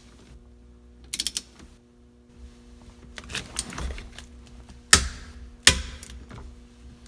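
Click-type torque wrench set to 28 lb-ft tightening a steering wheel bolt. A quick run of ratchet clicks comes about a second in, then more ratcheting, then two loud, sharp single clicks near the end as the wrench reaches its set torque.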